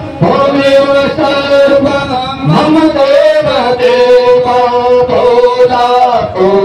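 Devotional Hindu bhajan to Shiva sung with musical accompaniment, the voice holding long notes for about a second each and sliding between pitches.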